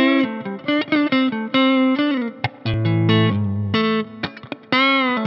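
1978 Tokai Springy Sound ST-42, a Stratocaster-style electric guitar, played through a Fender Deluxe Reverb amplifier: a lead line of single notes with string bends that rise and fall in pitch near the start and near the end, and a run of lower notes in the middle.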